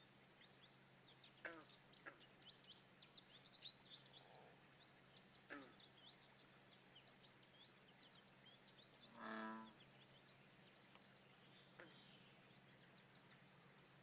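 Songbirds chirping and twittering in quick high notes, with a few falling whistled calls. About nine seconds in a single short frog croak, the loudest sound. A faint steady low hum runs underneath.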